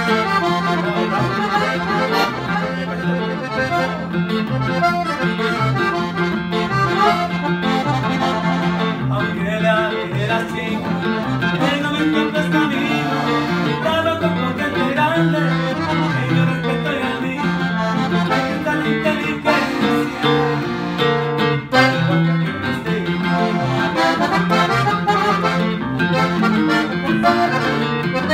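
Button accordion and acoustic guitar playing a norteño-style tune together, over a steady, repeating bass beat.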